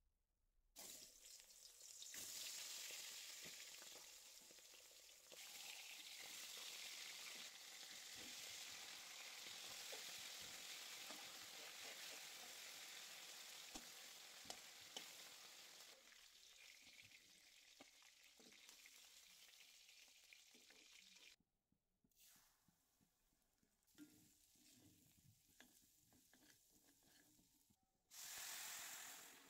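Bottle gourd pieces frying and sizzling in hot oil in an aluminium wok, with a metal spatula knocking against the pan now and then as it is stirred. About 21 s in the sizzle cuts out and only faint sounds follow, then a short loud hiss near the end.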